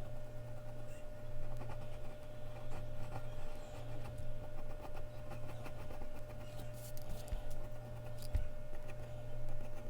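Mechanical pencil scratching on Bristol paper in short, irregular strokes, with a few sharper scrapes near the end, over a steady low hum.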